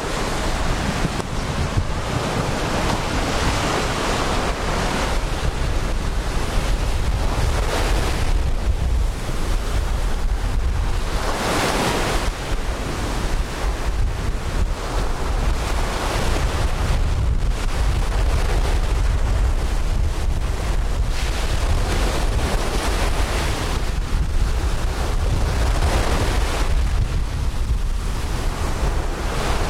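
Ocean surf breaking and washing up the beach, swelling and easing every few seconds, with wind buffeting the microphone as a steady low rumble underneath.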